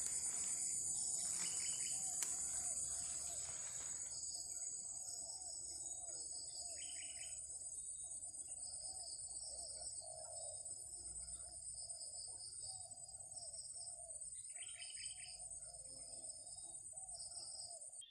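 Insects trilling steadily at a high pitch, with a second, lower pulsing trill and short chirping calls breaking in a few times.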